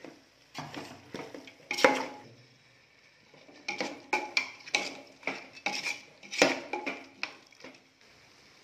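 Perforated metal spatula scraping and clinking against the sides and bottom of a metal pot while stirring a thick masala, in two spells of quick strokes with a short pause between; the stirring stops near the end.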